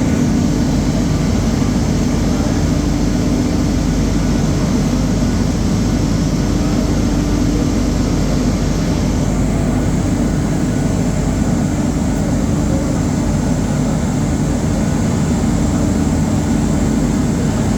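Olive mill machinery running with a loud, steady mechanical drone and a constant low hum. Part of the high hiss drops away about nine seconds in.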